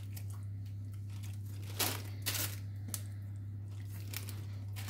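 Crinkling plastic roasting bag under a pastry brush spreading marinade over pork ribs, a few short rustles over a steady low hum.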